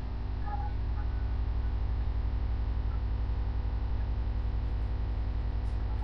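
Steady low electrical mains hum with a fast, regular pulsing flutter, growing a little louder over the first second or two.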